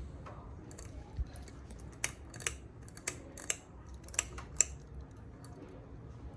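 A series of sharp, irregular clicks, roughly two a second, over a steady low rumble.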